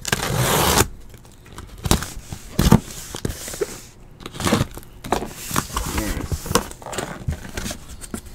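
A cardboard shipping case of sealed hobby boxes being handled and opened. Right at the start there is a rasp of cardboard lasting under a second, followed by scattered knocks, taps and rustles of cardboard.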